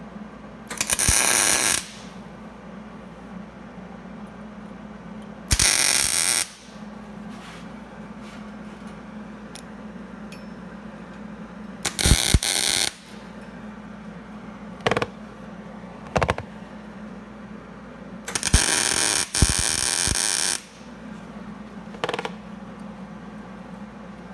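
MIG welder tacking a steel weld elbow onto an exhaust manifold flange: several bursts of arc crackle about a second long, a longer one of about two seconds near 18 s in, and a few very short blips between. A steady low hum fills the gaps.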